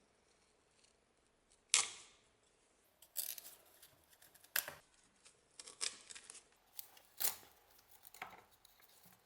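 A series of sharp knocks and clicks of hard objects being handled, with short scraping sounds between them. The loudest knock is about two seconds in, and the others follow roughly every second.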